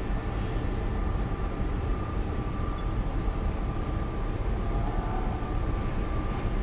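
Steady machine-shop hum: a low rumble with a couple of faint, steady whining tones, from the powered-up CNC milling machine and the shop equipment around it.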